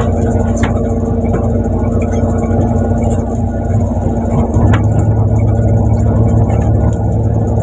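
Fishing boat's engine running with a steady drone; its low rumble grows louder about halfway through. A few light knocks are heard over it.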